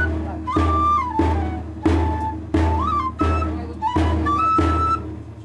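Huaylia music on a flute and a double-headed drum: the flute plays a high melody of held notes stepping up and down, over a steady drumstick beat about every two-thirds of a second.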